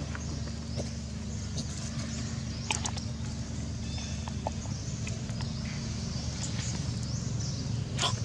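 A steady low rumble under scattered rustles and clicks of dry leaves as macaques move over leaf litter, with a few faint high chirps; sharper rustles come about three seconds in and again near the end.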